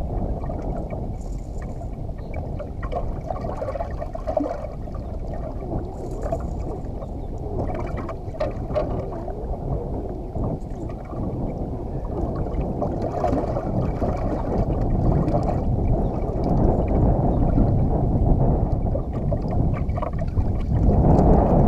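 Wind buffeting the microphone over water slapping against a boat hull, a steady rumbling noise that grows louder near the end, with a few faint knocks.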